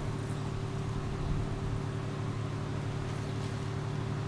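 A steady, unchanging low machine hum, such as a running motor or engine, with no breaks or changes.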